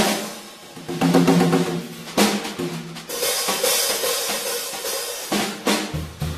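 Drum kit playing a swing jazz passage: separate drum strokes with ringing tones, a cymbal wash from about the middle, and a heavy bass-drum hit near the end.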